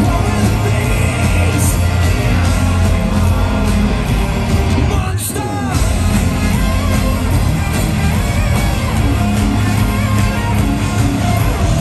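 Live rock band playing loud through a festival PA, with drums, electric guitar, keyboards and a singing, shouting lead vocal. The band briefly drops out about five seconds in, then comes back in full.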